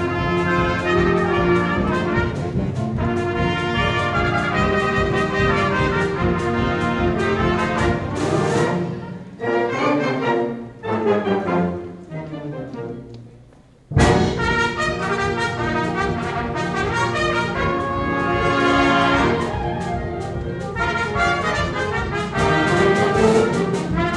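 Brass band music led by trumpets, several instruments playing together. About eight seconds in the playing thins out into falling notes and nearly dies away, then the full band comes back in abruptly about fourteen seconds in.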